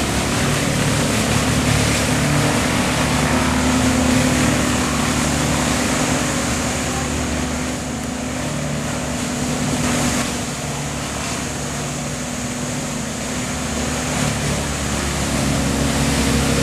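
Wood chipper running steadily: a constant engine drone with a noisy rush over it, easing a little in the middle and picking up again near the end.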